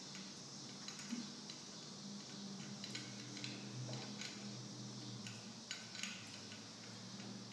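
Scattered light clicks and metallic clinks of rope-rescue hardware and rope being handled while a prusik hitch is tied onto the main line, over a steady low hum.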